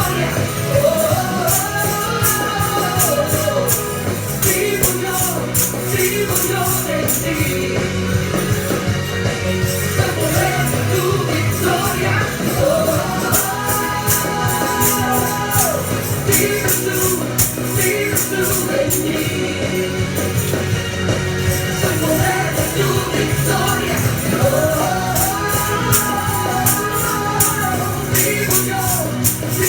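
Spanish-language worship song with sung vocals over a band, a steady beat and tambourine.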